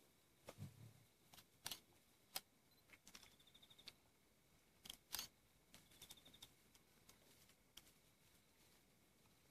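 Quiet night bush: a calling insect repeats a short rapid buzzing trill about every three seconds, with scattered sharp clicks and a soft low thump about half a second in.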